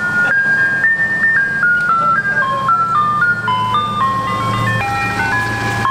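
Ice cream truck chime playing its jingle, a simple tinkling melody of short stepped notes, with the van's engine running low underneath as it drives.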